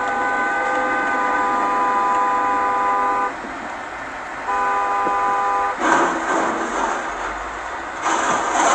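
Two-tone car horn honking: one long blast of about three seconds, then a shorter one, as a warning to a dump truck driving with its tipper bed raised. Then loud crashing and clattering as the raised bed strikes an overhead highway sign gantry and brings it down.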